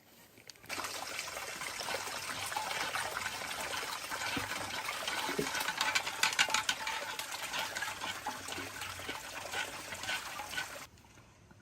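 Water running in a steady splashing stream. It starts abruptly about a second in and stops suddenly near the end.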